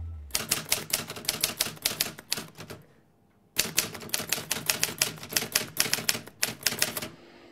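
Rapid, uneven key clicks like typing, several a second, stopping for about half a second a little before halfway.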